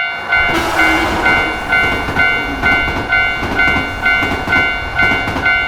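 Japanese railroad crossing bell (fumikiri) ringing steadily, a little over two dings a second, over the rumble and clatter of a passing train that comes in about half a second in.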